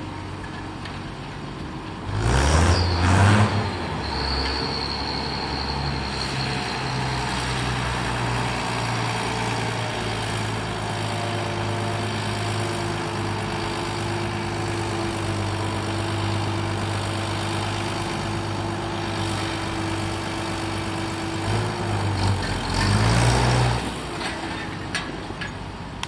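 International 955 tractor's diesel engine running, revved up sharply about two seconds in, then running steadily before revving again near the end.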